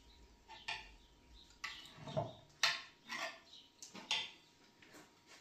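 Dishes and cutlery clinking at a meal: about eight light, irregular knocks of utensils and crockery, each with a short ring.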